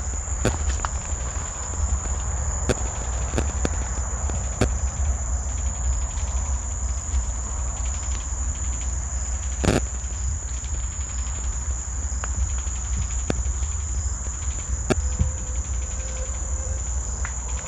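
A steady, high-pitched insect-like drone over a low rumble, broken by irregular sharp clicks, one louder about ten seconds in.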